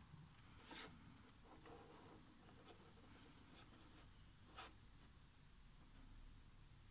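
Near silence, with faint scratchy rustles of a cardboard model-kit box being shifted in the hands, slightly louder about a second in and again past halfway.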